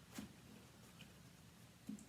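Near silence: room tone with a low hum, and a faint click just after the start.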